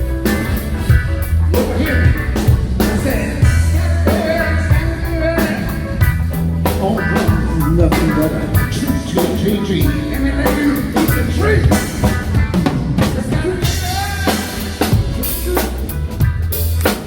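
Live band playing at a sound check, with the drum kit prominent: steady kick and snare hits over a full band.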